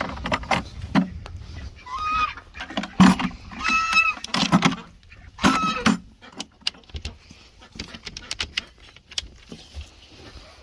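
Farm fowl honking three times, short flat goose-like calls, among knocks and rattles from the coop as the nest boxes are checked for eggs.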